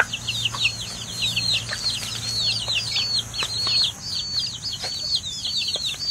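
A brood of baby chicks peeping without pause: many overlapping high, falling peeps, several a second, with a few light taps among them.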